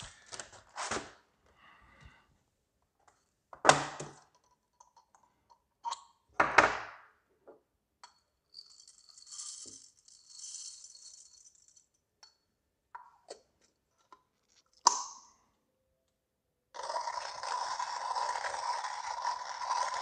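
Knocks of a glass jar and a hand coffee grinder being handled on a table, and a light rattle of coffee beans poured into the grinder. Near the end the Comandante C40 hand grinder starts cranking: a steady grinding of the beans through its steel burrs at a coarse setting.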